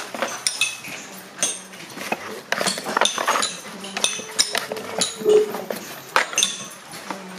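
A hand-lever press clanking and clinking irregularly as its steel lever is worked down and up over a row of glued cardboard firework tubes. The knocks are sharp metallic ones with a short ring.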